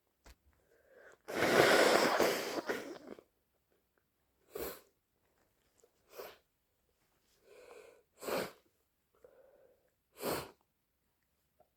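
A loud, wet blast of nasal noise from a stuffy nose with a head cold, lasting about two seconds, then four short, sharp sniffles a second or two apart with quieter breaths between.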